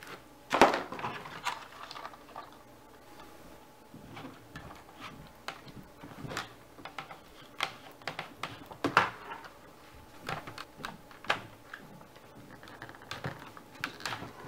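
Irregular clicks and knocks of 3D-printed plastic wing panels with servos being handled and shifted on a cutting mat, with servo wires being routed, the sharpest knocks about half a second in and about nine seconds in.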